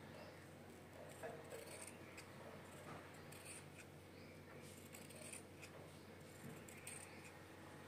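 Fabric scissors cutting through cloth along a chalked line, a run of faint snips about one a second.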